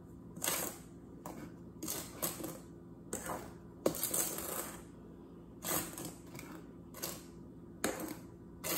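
A mixing spoon scraping and knocking against a metal mixing bowl while dry cake ingredients are stirred: irregular strokes, roughly one a second.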